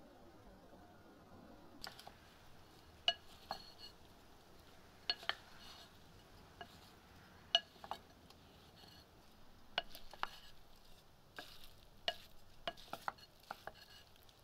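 Wooden spoons tossing a fruit salad in a large ceramic bowl, knocking against the bowl in irregular sharp clicks with a short ring, starting about two seconds in.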